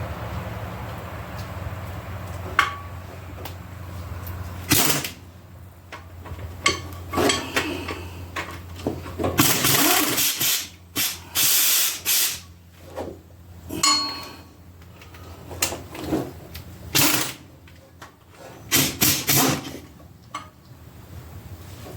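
Power tool running in short bursts about a second long, with metal tool clicks and knocks between them, as the bolts of the motor mount brackets are taken off a small-block Chevy 350 block. A steady low hum runs under the first five seconds, then stops.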